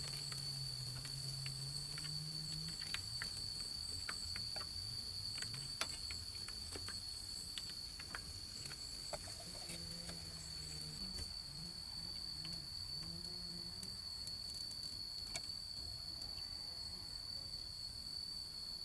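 Insects trilling steadily at one high pitch, with scattered sharp clicks.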